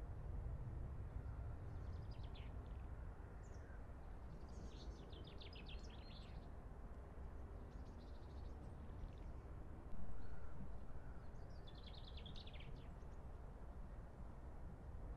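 Small songbirds singing short, rapid trilled phrases, four times, over a steady low rumble of outdoor background noise. A single dull bump comes about two-thirds of the way through and fades within a second.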